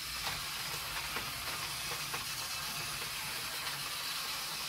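Several small battery-powered Tomy toy cars running round a plastic track: a steady whirring of tiny motors and wheels, with a few light clicks.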